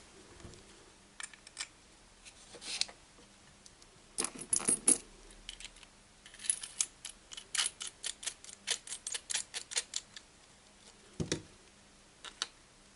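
Small metallic clicks and clinks of a soldering iron's tip being swapped for a wide tip: a few scattered taps, then a quick run of small clicks, about four a second, for several seconds, and a single duller knock near the end.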